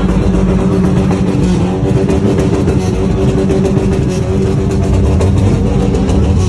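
Car engine held at high revs, a steady drone that holds its pitch throughout.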